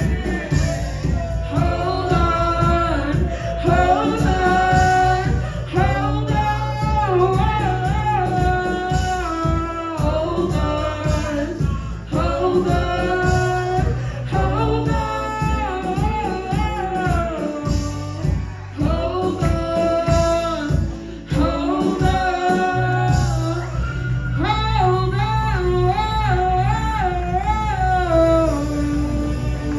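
Live band playing a song, a woman singing the lead with vibrato over the band's steady beat.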